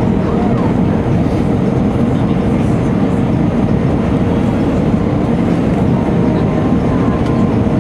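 Steady cabin noise inside an Airbus A319 in flight: the hum of its jet engines and the rush of air past the fuselage, heaviest in the low end.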